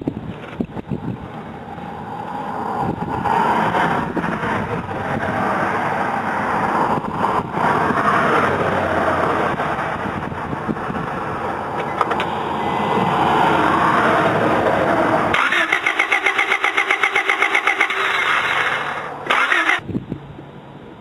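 Honda del Sol engine cranking on the starter without catching: a fast, even chugging of about eight beats a second for some four seconds near the end, which stops abruptly. Before it comes a rushing noise that swells and fades. The engine won't fire because a failing ignition coil gives only weak, intermittent spark.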